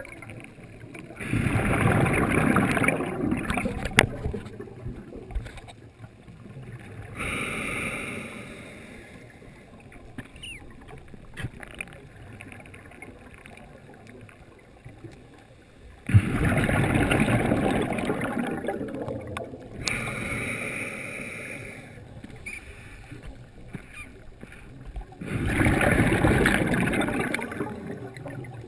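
A scuba diver breathing through a regulator underwater: three bursts of exhaled bubbles, each two to three seconds long (about a second in, around the middle, and near the end), with shorter, quieter hissing inhalations between them.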